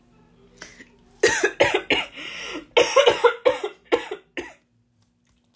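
A woman coughing in a fit of about a dozen rapid, sharp coughs, starting about a second in and stopping near the end: she has choked.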